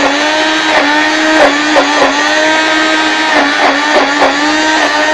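Immersion hand blender running at full speed in thick, partly frozen ice cream mix, a steady motor whine whose pitch dips briefly several times as the blade meets the stiff mixture.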